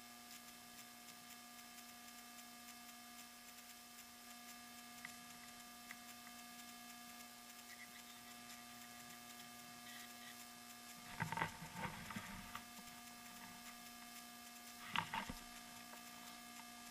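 Steady electrical hum with several overtones, broken by two short bursts of noise, about eleven seconds in and again about fifteen seconds in.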